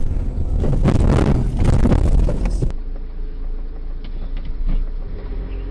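Car driving noise picked up by a dashboard camera: a dense rumble of engine and road noise. About halfway through it cuts to a steadier, quieter hum of another car in motion.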